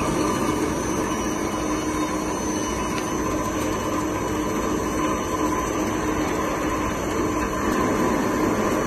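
ALCK6140X1000 CNC lathe running: a steady machine hum with a couple of steady tones riding on it, holding even throughout.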